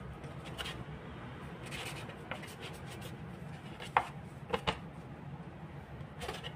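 A plastic dough scraper cutting through pastry dough and scraping on a wooden cutting board, with soft scrapes and, about four seconds in, three sharp knocks close together. A steady low hum runs underneath.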